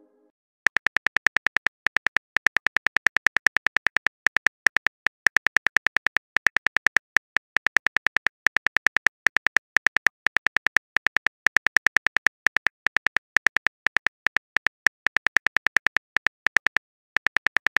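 Simulated phone keyboard typing sound: a rapid, steady run of short clicks, several a second, as a text message is typed out letter by letter. There is a brief pause near the end before the clicks resume.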